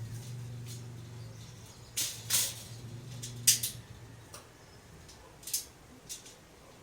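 A few sharp clicks and clinks of metal rack parts being handled during assembly, the loudest about halfway through, over a low steady hum that stops a little past the middle.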